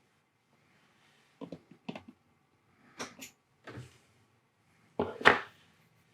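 A few short, sharp clicks and knocks of hands and tools handling a circuit board on a workbench, the loudest a pair of knocks about five seconds in.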